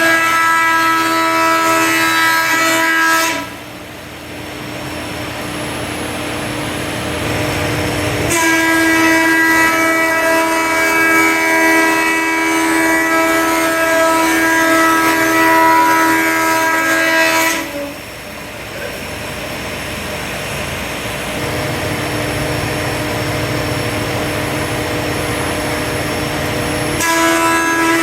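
20-inch Grizzly helical-head planer cutting a black walnut and resin panel: a loud, steady whine of several pitches while the board feeds through. It drops to a lower running sound between passes and comes back twice more, so three stretches of cutting with two quieter spells between them.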